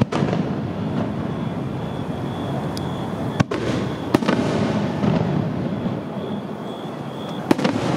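Aerial fireworks going off in a dense, continuous crackle, with four sharp bangs from bursting shells: at the start, about three and a half seconds in, a moment later, and near the end.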